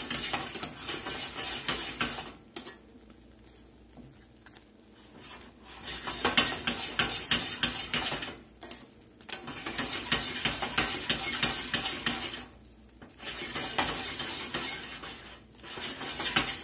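A metal skillet is swirled on a gas burner in four bouts of a few seconds each, with quieter gaps between. The pan clatters on the grate while the shrimp and sauce inside slosh and sizzle as chunks of butter are swirled into the reducing sauce.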